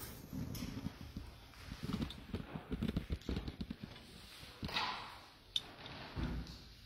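Soft, irregular low thumps and rustling, with a single sharp click a little past the middle.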